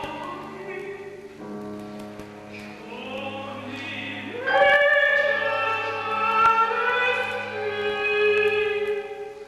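Mezzo-soprano singing held notes over sustained low strings of a chamber orchestra, rising into a louder held note about halfway through.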